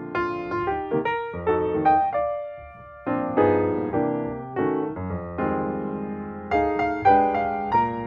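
Background piano music, single notes and chords struck one after another and left to fade.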